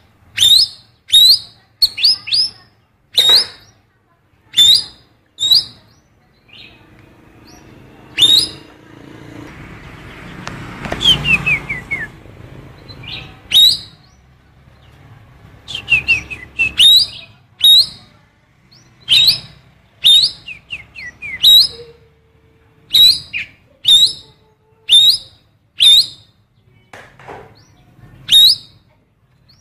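Cucak keling songbird singing a repertoire of female oriental magpie-robin calls: short, sharp, loud calls about once a second, broken twice by quick runs of falling notes. A stretch of noise sits under the calls around ten seconds in.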